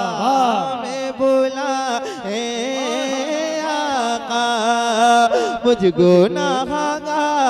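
A man singing an Urdu naat without instruments, drawing out and ornamenting the word 'Taiba' in a long melismatic phrase, then starting the refrain again with 'mujh' near the end.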